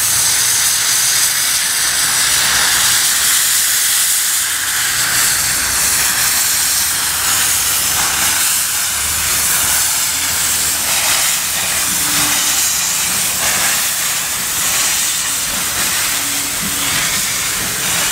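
0-4-0 saddle tank steam locomotive hissing loudly and steadily from its open cylinder drain cocks as it moves slowly, clearing condensed water from the cylinders.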